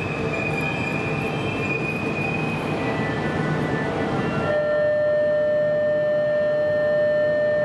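Sotetsu electric train running through the station, a steady rumble under high whining tones. About halfway through the sound changes abruptly to a lower, steadier whine.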